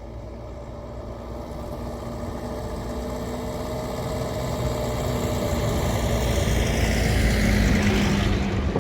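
Motor vehicle engine running and growing steadily louder as it draws near, loudest near the end.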